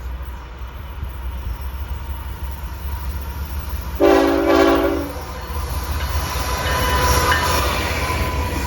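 Locomotive horn sounding one short blast of about a second, several notes at once, over the steady low rumble of a passing train. From about six seconds in the rail noise grows, with a faint squeal in it.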